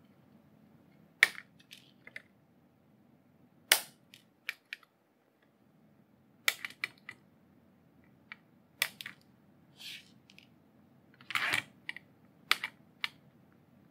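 Flush cutters snipping soldered component leads off the underside of a circuit board: about six sharp snaps, two to three seconds apart, with lighter clicks between them.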